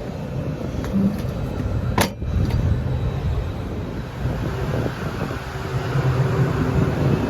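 Rooftop air-conditioning units running with a steady low hum. One sharp click comes about two seconds in.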